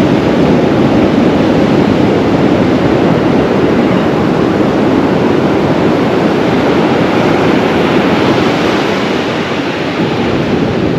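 Ocean surf breaking and washing up the beach: a loud, steady roar of waves.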